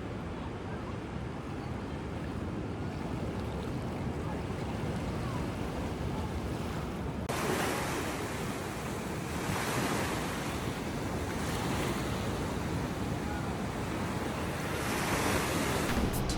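Ocean waves surging and washing on the shore, with wind buffeting the microphone. The sound changes abruptly about seven seconds in, after which a brighter wash swells roughly every two to three seconds.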